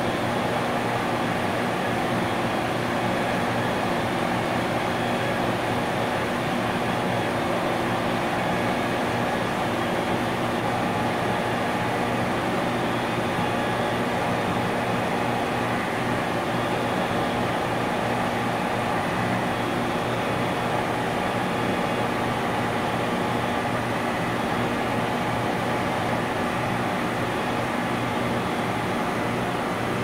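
Industrial compressor running steadily: a constant mechanical hum made of several steady tones over a rushing noise, with no change in level.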